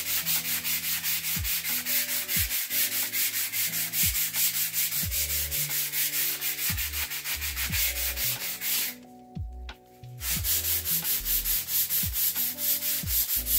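Sanding pad rubbed by hand in rapid back-and-forth strokes over chalk-painted wood, lightly scuffing the blue top coat to let the brown layer beneath show through. The strokes stop briefly about nine seconds in, then carry on.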